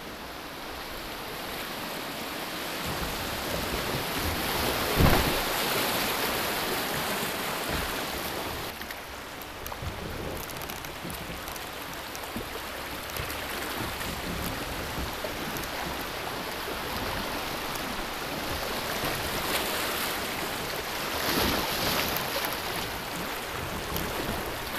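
Rushing water of a shallow rocky river rapid around a kayak, a steady hiss that swells and eases, with wind buffeting the microphone. One sharp knock about five seconds in.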